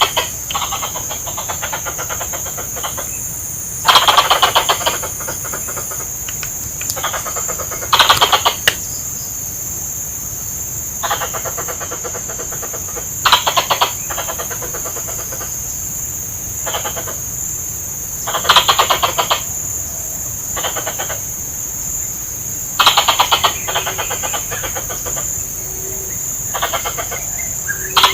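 Adult plantain squirrel (tupai kelapa) giving loud, rapid chattering call bursts about every four to five seconds, with softer chatter in between. It is the kind of call played to lure squirrels.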